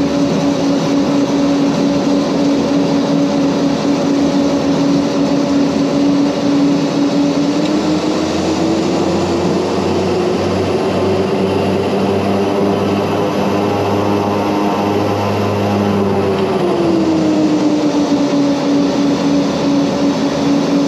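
Mitsubishi MU-2's twin Garrett TPE331 turboprop engines and propellers heard from inside the aircraft: a loud, steady drone. About eight seconds in its main tone rises a little and holds, then falls back to where it was about seventeen seconds in.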